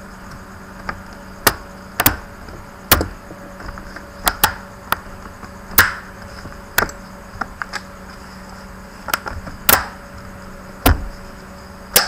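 Sharp plastic clicks and snaps, about fourteen at uneven intervals, as the Asus S200E laptop's bottom case is pressed shut around its edges and its clips snap into place.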